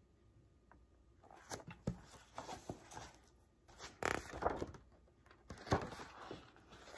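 Pages of a hardcover picture book being turned and handled: short papery rustles and flaps, loudest about four seconds in and again at about five and a half seconds, after a near-silent first second.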